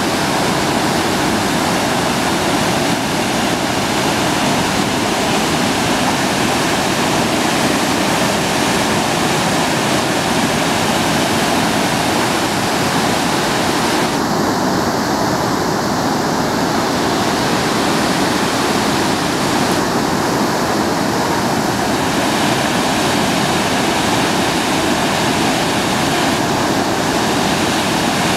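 River in flood rushing over a weir and churning as whitewater below it: a loud, steady rush of water.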